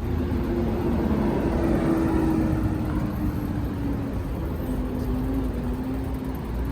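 Strong wind buffeting the microphone, a steady heavy rumble, with a faint steady drone underneath that slowly dips in pitch.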